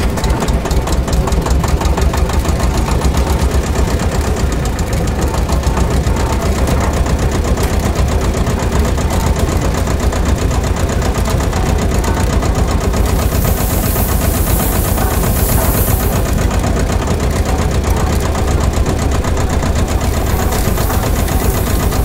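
Miniature model diesel engine running steadily with a rapid, even knocking beat as it drives a belt-driven sand-screening trommel. A hiss of sand pouring through the screen joins it about halfway through and again near the end.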